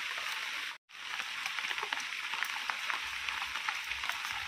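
Heavy rain falling steadily, a dense hiss with fine crackling patter of drops, broken by a brief complete dropout just under a second in.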